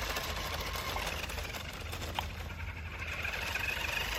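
Toy RC rock crawler's small electric motor and plastic gearbox whirring as the truck is driven, with a whine that rises near the end as it speeds up.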